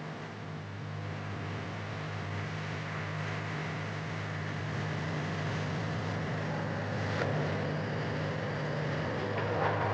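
Excavator's diesel engine running steadily, with a couple of short knocks about seven seconds in and near the end.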